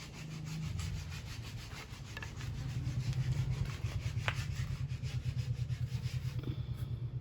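Wooden board being sanded by hand with sandpaper: quick, even back-and-forth strokes, several a second, growing louder about two and a half seconds in. A single light tap comes near the middle.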